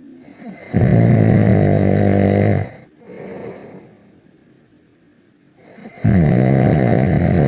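Loud snoring: two long, buzzing snores about five seconds apart, each followed by a quieter breath.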